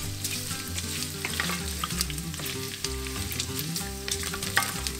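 Sliced sausages and chopped bacon sizzling in a hot frying pan, with scattered sharp crackles, while a wooden spatula stirs and scrapes them around the pan.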